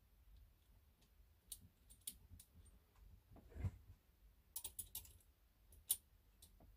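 Faint, scattered light clicks of small metal parts as the tension knob and number dial are fitted and turned on a Singer Featherweight's thread tension assembly, with a quick run of clicks about five seconds in and a soft bump about halfway through.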